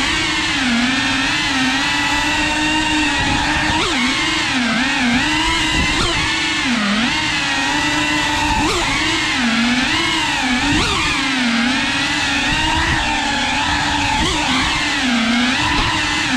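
FPV quadcopter's motors and propellers whining, the pitch constantly rising and falling as the throttle changes.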